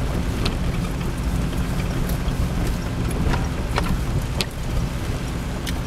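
Jeep Cherokee XJ engine running steadily as it drives a gravel trail, heard from inside the cab over a steady low rumble, with a few sharp ticks scattered through.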